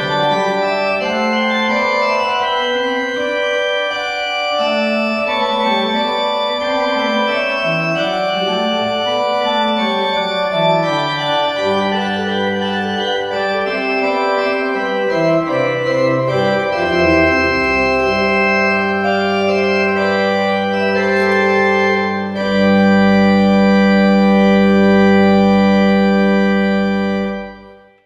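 Organ music: sustained chords over a moving bass line, building to a louder, held final chord about 22 seconds in that stops just before the end.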